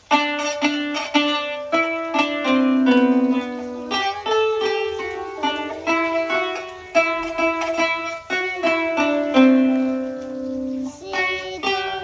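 Kanun (Turkish plucked zither) played with ring-mounted plectra on both index fingers: a melody of quick plucked notes that ring on, with one low note rapidly re-picked about three seconds in.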